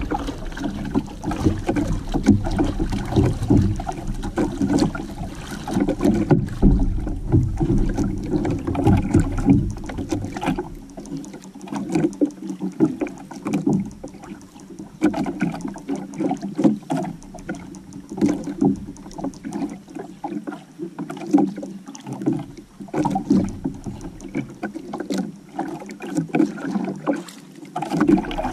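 Water slapping and sloshing against the hull and outrigger of a small outrigger canoe, in uneven surges with scattered small knocks. A low wind rumble on the microphone fades out after about ten seconds.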